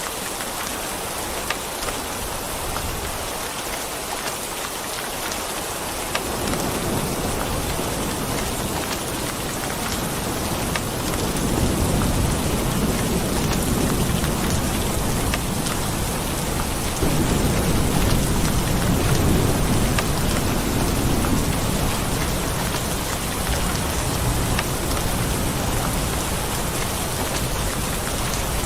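Steady heavy rain falling, with a low rolling rumble of thunder building from about six seconds in and loudest through the middle.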